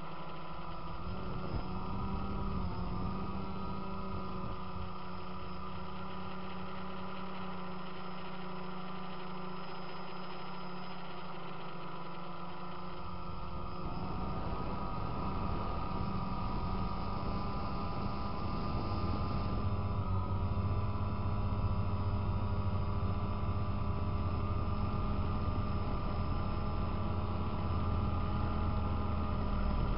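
DJI Phantom quadcopter's electric motors and propellers humming steadily, heard through its own onboard camera. The hum shifts in pitch and grows a little louder about halfway through, and shifts again a few seconds later.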